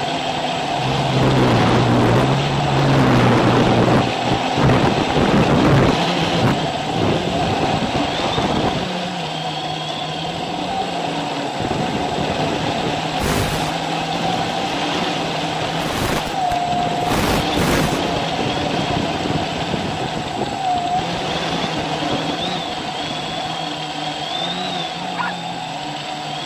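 Small quadcopter's electric motors and propellers humming steadily in flight, their pitch dipping briefly a couple of times. A louder rushing noise over the first several seconds.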